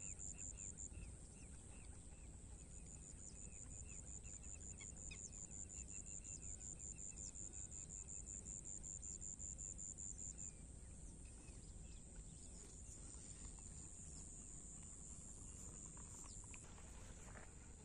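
Faint outdoor ambience: a high, rapidly pulsing insect trill with short repeated bird chirps, both dying away about ten seconds in. A few faint clicks come near the end.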